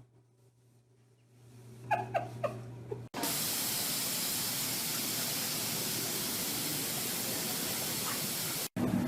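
A steady loud hiss, like spraying water or rushing air, that cuts in suddenly about three seconds in and stops just as suddenly near the end. Before it come a few short high-pitched squeaks.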